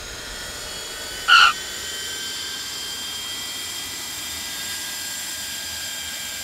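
Jet trainer's turbine engine whining steadily on the ground, a cluster of high steady tones. A short, loud, high-pitched squeak cuts in about a second in.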